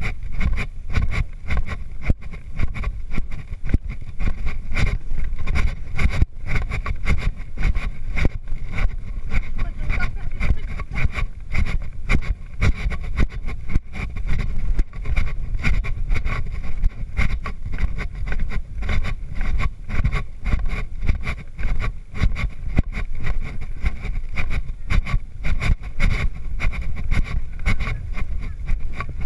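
Wind buffeting the microphone of a rider-worn camera on a cantering horse, a heavy low rumble, with the horse's hoofbeats on sand pulsing in an even rhythm underneath.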